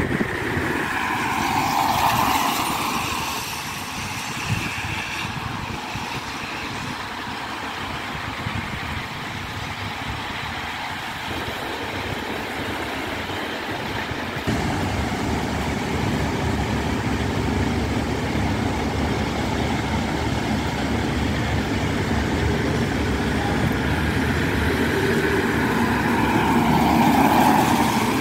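Road vehicles passing on a wet road, with a swelling hiss of tyres on wet tarmac once about two seconds in and again near the end. Under them runs a steady low vehicle rumble that steps up suddenly about halfway through.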